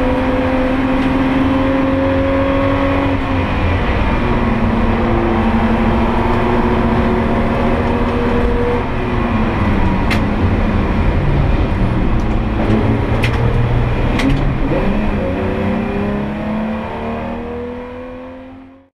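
In-cabin sound of a BMW E30 race car at speed: the engine runs loud under load, its pitch slowly rising and dipping, over heavy road and wind rumble. A few sharp clicks come in the second half, and the sound fades out at the end.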